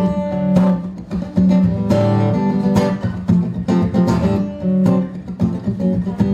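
Acoustic guitar playing the intro of a blues song, strummed and picked notes in a steady rhythm, before the vocals come in.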